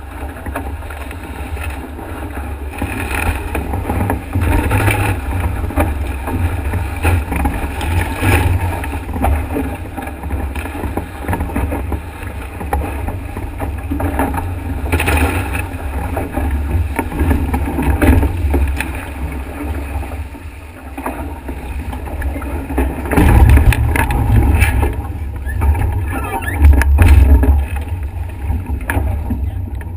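Wind buffeting the microphone over the rush and splash of water along a Nacra 5.8na catamaran's hull sailing fast in strong wind. The noise surges in gusts and spray hits, loudest about two-thirds of the way through and again near the end.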